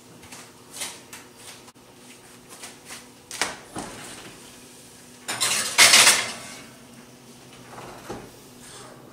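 A glass baking dish going into an oven: light clicks and knocks, then a loud scraping clatter of about a second, about five seconds in, as the dish slides onto the metal wire oven rack, with smaller knocks near the end.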